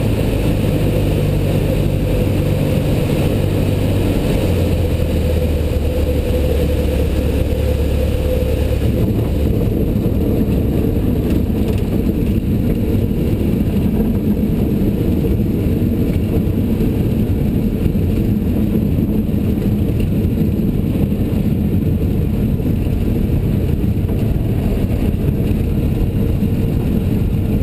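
Single piston engine of a light aircraft heard from inside the cockpit, running at low power during the landing roll on a grass runway. The engine note drops about four seconds in, and the higher hiss fades after about nine seconds as the plane slows.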